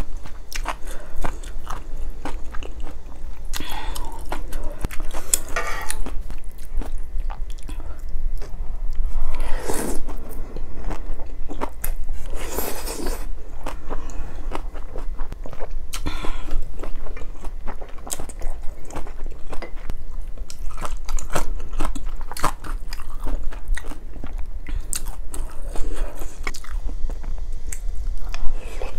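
Close-miked eating of malatang: wet chewing and mouth clicks, broken by a few louder drawn-out slurps of noodles and broth.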